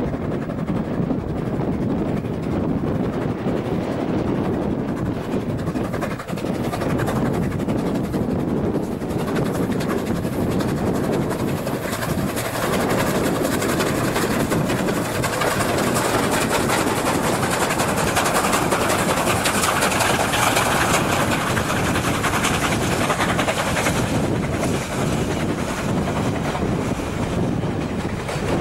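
Two QJ-class steam locomotives double-heading a freight train, working hard on the climb. Their running noise is continuous and builds as they pass close, loudest a little past halfway, then eases as the train goes by.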